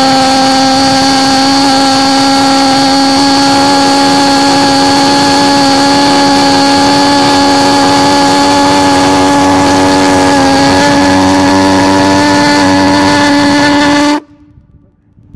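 Small pulse jet engine running flat out: a very loud, steady, high-pitched buzzing drone with strong overtones, which cuts off suddenly near the end.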